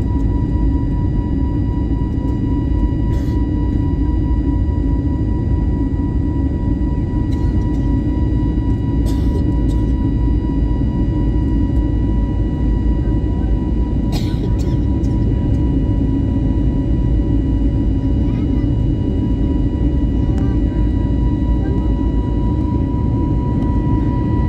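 Steady cabin noise of an Airbus A320 climbing after takeoff: the jet engines' low rumble with a steady whine on top, and a few faint clicks.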